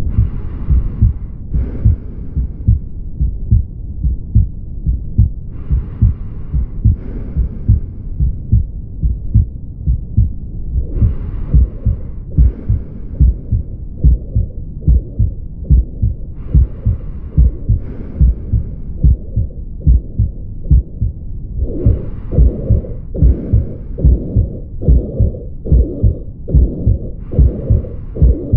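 Heart heard through a stethoscope, beating regularly, with the murmur of mitral regurgitation, a blowing murmur through systole. A hissier swell comes back every five to six seconds.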